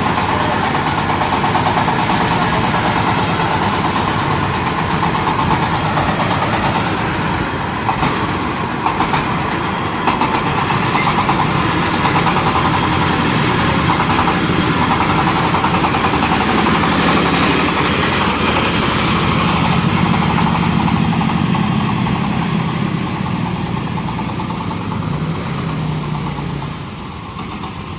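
Corn sheller machine running: its engine runs steadily, with a few sharp clicks about a third of the way in and a slight drop in level near the end.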